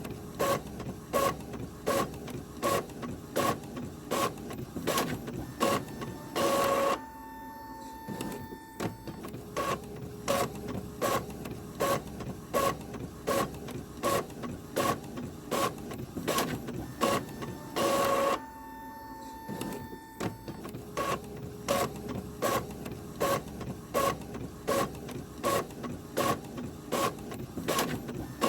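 Printer running through a repeating cycle: regular mechanical clicks about two a second, broken twice by a short, louder whir and then a quieter pause of a couple of seconds with a faint steady hum before the clicking resumes.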